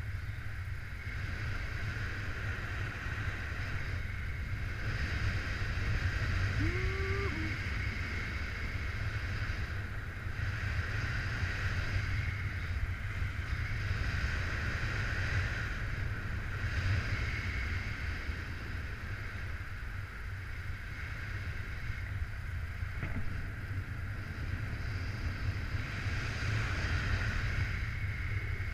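Airflow buffeting the microphone of a camera carried by a paraglider pilot in soaring flight: a steady rumbling wind noise that swells and eases with the gusts.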